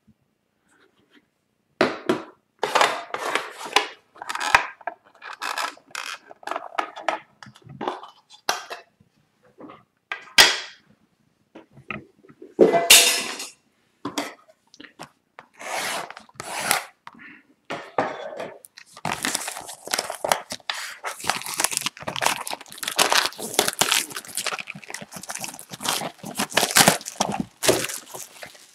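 Plastic shrink-wrap on a sealed hockey card box crinkling and tearing as it is handled and pulled off, in irregular rustling bursts that grow denser over the last third. There is one sharp click about ten seconds in.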